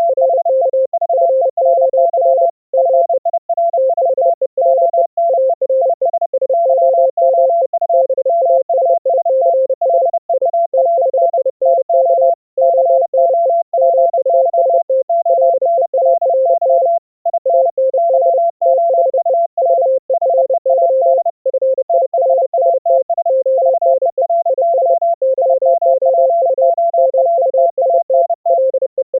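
Two Morse code tones at different pitches, one lower and one higher, keyed at once in rapid overlapping dots and dashes throughout. These are two operators sending CW simultaneously over a full-duplex audio-over-IP link.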